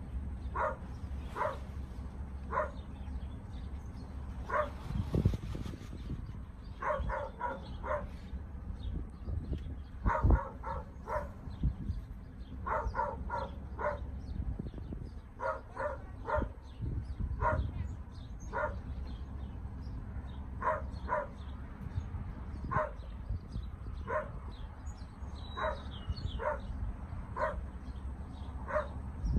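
A dog barking over and over in short barks, singly or in quick runs of two or three, about once a second, over a low steady rumble. A louder thump comes about ten seconds in.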